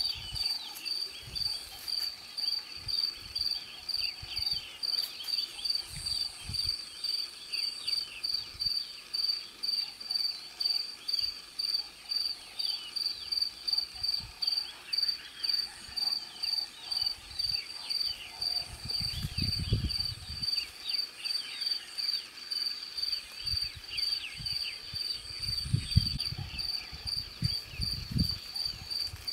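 Cricket chirping steadily, a high even pulse repeating about two to three times a second. A few low rumbles come through about two-thirds of the way in and again near the end.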